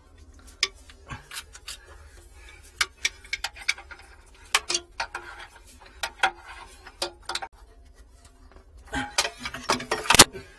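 Irregular metallic clicks and clinks of a wrench and gloved hands working on a water fountain's valve and supply-line fittings, with a louder knock near the end.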